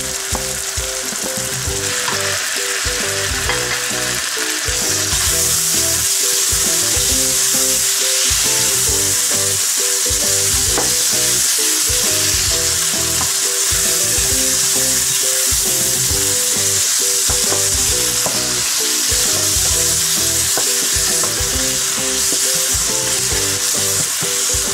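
Onion, tomato and spice masala sizzling as it fries in oil in a non-stick wok, stirred with a wooden spoon. The sizzle grows louder about five seconds in.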